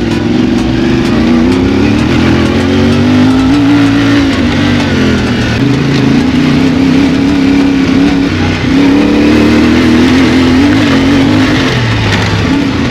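Adventure motorcycle engine running under load while riding off-road, its note rising and falling with the throttle, with a brief dip about halfway through and another shortly after.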